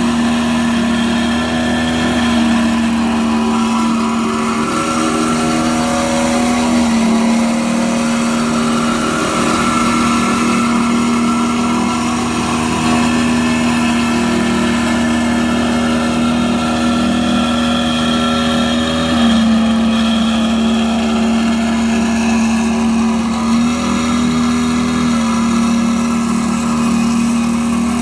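Walk-behind double-drum roller's small engine running steadily under load as it compacts bare soil, a strong, even hum whose pitch shifts slightly a few times.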